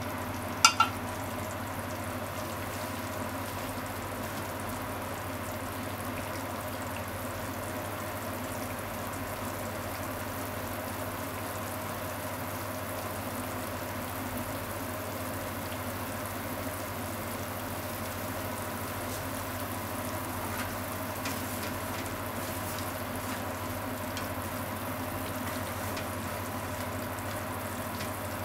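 Ground pork simmering in a seasoned liquid in a frying pan: a steady bubbling and light sizzling over a constant low hum. Two sharp clicks come just under a second in.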